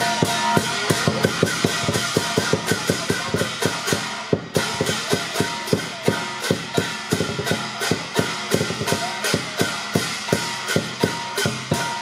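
Lion dance percussion: a big drum beaten in a fast, steady rhythm of about five beats a second, with cymbals clashing over it.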